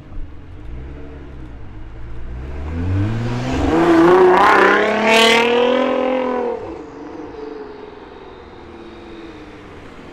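A car accelerating hard as it drives past, its engine note climbing in pitch and growing loud, then dropping in pitch and fading as it moves away. A brief sharp crack sounds about five seconds in, at the loudest point.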